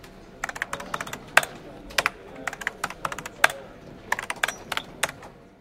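Typing sound effect: keys clicking in quick, irregular runs as text is typed out letter by letter.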